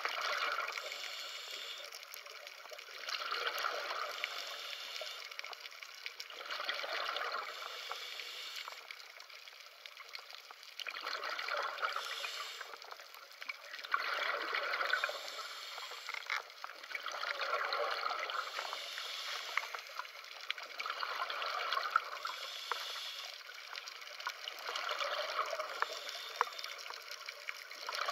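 A scuba diver's exhaled air bubbling out of the regulator in regular bursts, one breath every three to four seconds.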